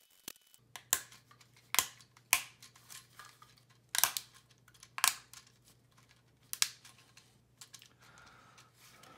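3D-printed plastic bearing being pressed by thumbs into the hub seat of a 3D-printed wheel, giving a series of sharp, irregular plastic clicks and snaps about a second apart, with a faint low hum behind.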